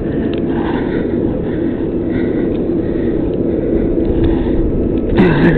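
Crane engine running with a steady low rumble and hum. A brief louder sound with a falling pitch comes near the end.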